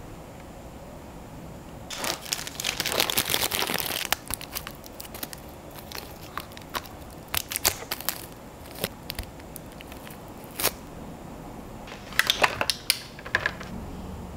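Small clear plastic bag crinkling and rustling in the hands as Nendoroid figure parts are unwrapped. There is a dense burst of crinkling about two seconds in, then scattered light clicks and rustles, and another short burst near the end.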